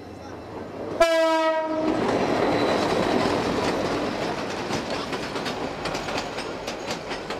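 A train sounds its horn once, a short blast about a second in, then rolls past close by with a steady rumble and the clatter of its wheels over the rails.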